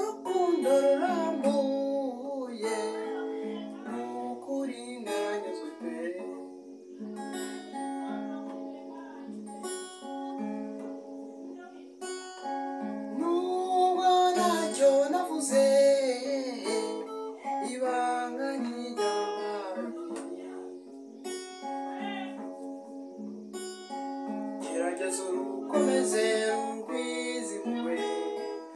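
A man singing while accompanying himself on an acoustic guitar, the strummed guitar under his voice throughout.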